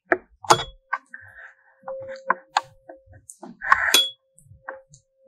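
A 512 Hz tuning fork humming a steady pure tone as it is held over a resonance-column tube, with several sharp knocks and clinks from the fork being struck and handled. The tube's air column is being tuned to the second resonance length, where the fork's note sounds louder.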